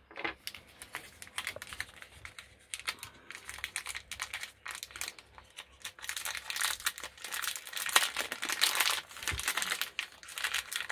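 Clear plastic packaging crinkling and rustling as a small camera mount is unwrapped by hand. It grows busier and louder in the second half, with one sharp crackle about eight seconds in.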